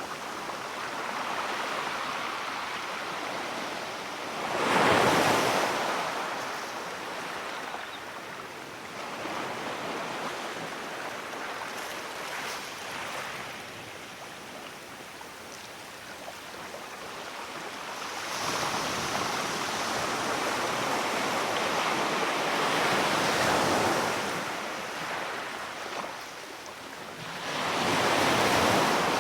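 Sea waves breaking and washing up the shore, rising and falling in surges: one sharp loud wave about five seconds in, a long swell in the second half and another wave building near the end.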